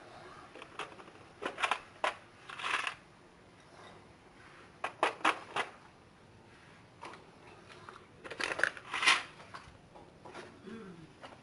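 Small hand tools clattering and clinking against a tiled floor, in several short bursts of quick knocks a few seconds apart, the loudest about three quarters of the way through.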